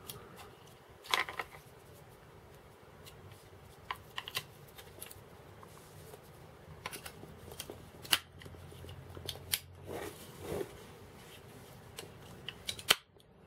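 AA batteries being fitted into the plastic battery compartment of a Garrett ACE 250 metal detector's control box: irregular clicks and knocks of batteries and plastic being handled, the sharpest click near the end.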